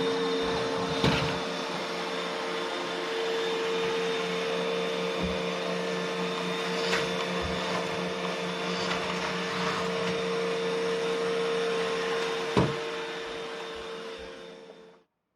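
Roomba robot vacuum running with a steady whirring hum, with a few sharp knocks, the loudest near the end. The sound fades down and stops just before the end.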